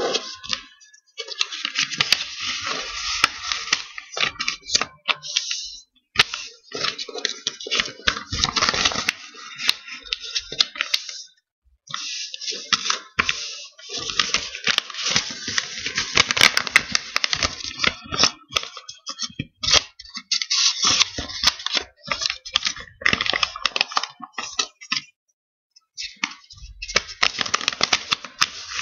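Sheet of paper crackling and rustling as it is folded and its creases pressed flat by hand, in irregular bursts with a few brief pauses.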